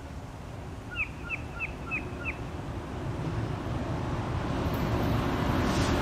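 A Union Pacific diesel freight train approaching, its rumble growing steadily louder. About a second in, a bird gives five quick falling chirps.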